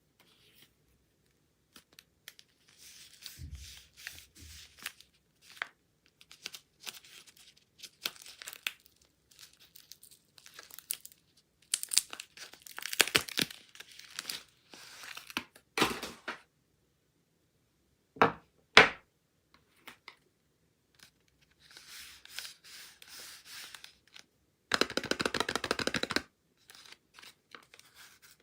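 Soap packaging being unwrapped by hand: the wrapper tears and crinkles in short bursts, with a few sharp clicks and a longer, louder rip near the end.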